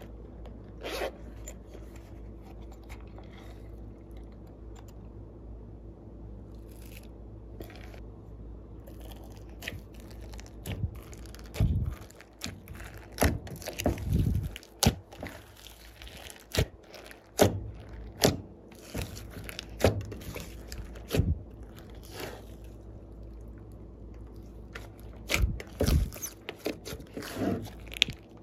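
Glossy slime being kneaded and pressed by hand, giving scattered sharp clicks and crackly pops. They are sparse at first and come several a second from about ten seconds in, over a steady low hum.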